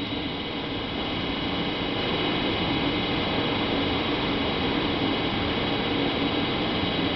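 DB class 101 electric locomotive standing with its electrical equipment and cooling blowers running: a steady hum with several high whining tones over a low drone, growing a little louder over the first couple of seconds.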